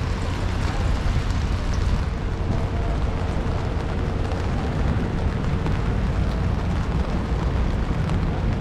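Steady street noise on a rainy city street: a heavy low rumble of traffic with rain hiss over it and a faint steady hum.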